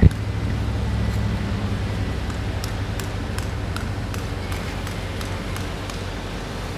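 Boom lift's engine running steadily at a low pitch, with faint regular ticks about three times a second. A sharp knock sounds right at the start.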